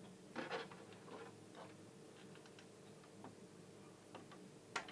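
Small irregular clicks and scrapes of a multimeter test probe being pressed and moved against a diode's leg and solder joints on a CRT TV's chassis board, over a low steady hum. The loudest clicks come about half a second in and just before the end.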